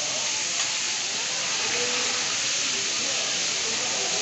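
Hilsa fish pieces sizzling in hot oil on a large iron griddle: a steady, even hiss.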